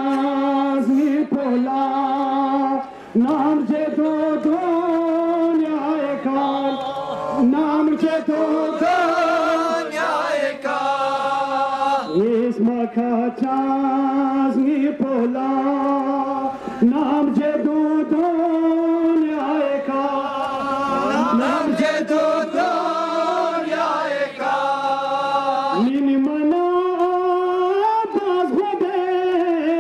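A man chanting a noha, a Shia mourning lament, into a handheld microphone in long held melodic phrases that step up and down in pitch.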